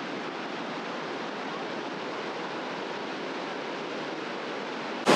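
Shallow river water rushing over low rock cascades: a steady, even rush of falling water.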